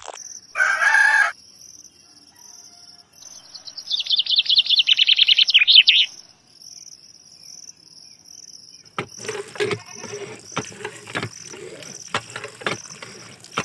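Outdoor birdsong over an insect chirping steadily at a high pitch: a loud call about half a second in, then a fast trill of notes falling in pitch from about four to six seconds. From about nine seconds a run of light clicks and knocks joins in, plausibly the handle of a small model hand pump being worked.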